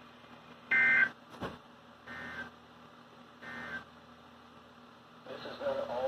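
Emergency Alert System end-of-message tones: three short bursts of warbling SAME data tones, about a second and a half apart, the first the loudest, signalling the end of the alert broadcast. A single click comes between the first and second bursts.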